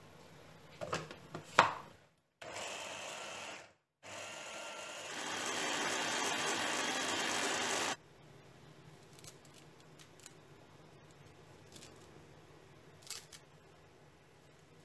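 Electric hand blender's mini chopper attachment running, chopping garlic and onion, in a short run and then a longer one that cuts off suddenly about eight seconds in. A few sharp clicks come before it, as the motor unit is fitted onto the chopper bowl, and faint handling ticks come after.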